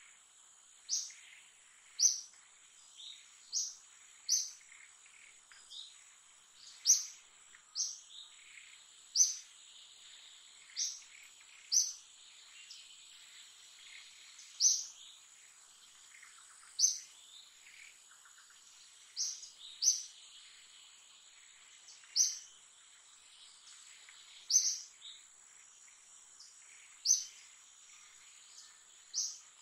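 Short, sharp, high-pitched bird chirps repeating every second or two, over a steady high-pitched insect whine.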